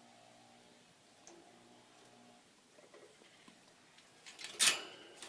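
Chinchilla moving about its wire cage: a few light clicks, then a sudden loud clatter with a brief metallic ring near the end, over a faint steady hum.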